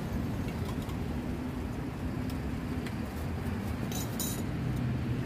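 Steady rumble of road traffic, with a few light metallic clinks of stainless steel cups and spoons and a quick cluster of clinks about four seconds in.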